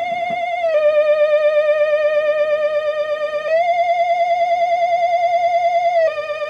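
Theremin-style electronic wail with a steady wavering vibrato, a looping spooky Halloween sound effect. It swings between two notes a step apart, sliding down about a second in, back up halfway through, and down again near the end.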